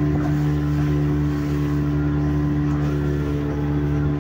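Engine of a small open motorboat running at a steady, unchanging pitch while the boat is under way.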